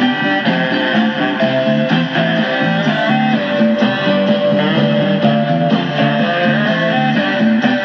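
Guitar music received on AM and playing from the Panasonic RE-6600 clock radio's built-in speaker, with a narrow, muffled top end.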